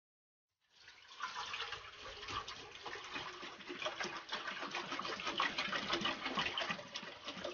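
Water pouring from a plastic bottle into an enamel pot, a steady splashing stream that starts a little under a second in.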